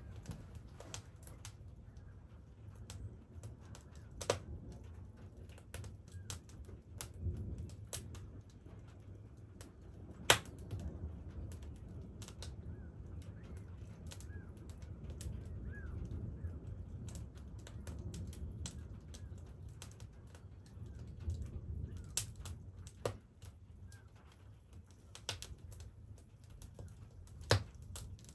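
Wood fire crackling in an open wood stove: irregular sharp pops and snaps, a few louder ones about four, ten and twenty-seven seconds in, over a low rumble. Faint bird chirps come through in the middle.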